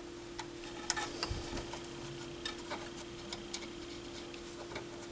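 Scattered light clicks and taps of a small screwdriver and metal parts as screws are tightened on a turntable's tonearm mechanism, over a steady faint hum.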